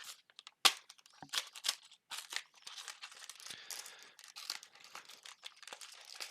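A freshly torn-open cardboard Lego box and its packaging being handled: a few sharp snaps and clicks, then crinkling.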